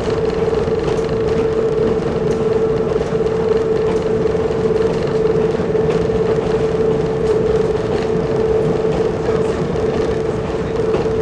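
Nanbu Jūkan Railway Kiha 10 railbus running along the line, heard from the cab: a steady engine and drivetrain drone with a constant high hum, and a few faint clicks from the wheels on the track.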